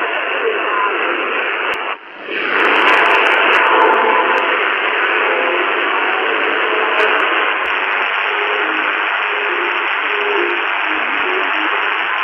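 Shortwave broadcast of LRA36 Radio Arcangel San Gabriel on 15476 kHz USB, heard through a Tecsun PL-368 portable receiver's speaker: dense hiss and static with faint snatches of the music programme underneath, the signal very distorted. About two seconds in the sound briefly fades away, then comes back.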